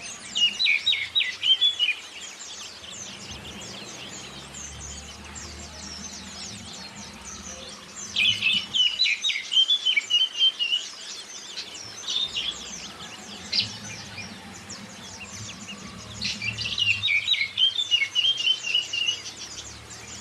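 Oriental magpie-robin (kacer) singing in three loud bursts of quick, varied phrases, at the start, about eight seconds in and about sixteen seconds in. Underneath runs a steady high twittering chorus of white-eyes (zosterops). This is a bird-song 'pancingan' track played to prompt caged birds to sing.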